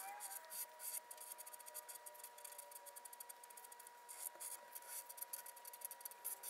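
Sharpie permanent marker scratching and squeaking on paper in many quick, short strokes while inking over pencil lines; faint.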